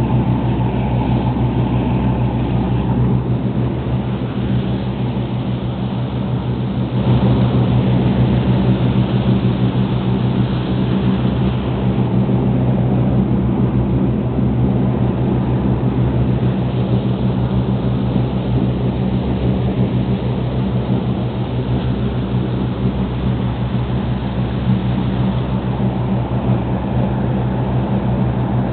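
A lobster boat's engine running steadily under way as a low drone, with the rush of water and wind over it; the rush gets louder about seven seconds in.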